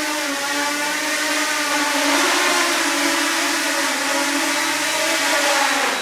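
DJI Mini 2 drone's propellers whining as it hovers against a strong fan-made wind of about 25 km/h, with the rush of the fan's air underneath. The motors constantly change speed to hold position: the whine rises about two seconds in and drops again near the end.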